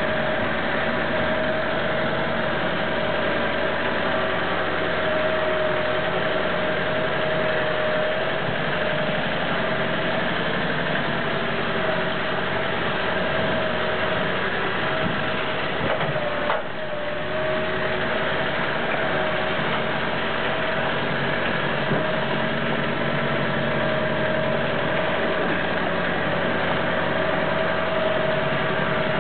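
Branson 3820i compact tractor's diesel engine running steadily as it pulls a half-ton wagon through mud. A single clunk comes a little after halfway, the sound of the driver engaging the rear differential lock by hand.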